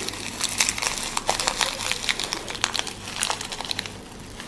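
Crinkling of a foil chocolate wrapper being untwisted and peeled off by hands in thin plastic gloves, which crinkle too. The crackling is a dense run of small irregular crackles that dies down near the end.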